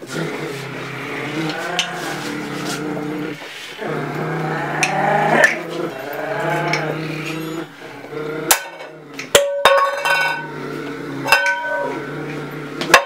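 Long wordless vocal moans and vowels over a low steady drone. In the second half, several sharp metallic clanks, as of a metal pot being struck, each ringing briefly.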